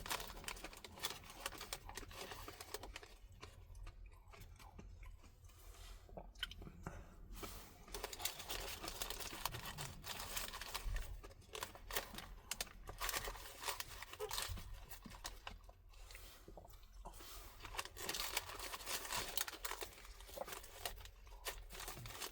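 A person chewing and crunching food close to the microphone, in spells with short pauses between mouthfuls.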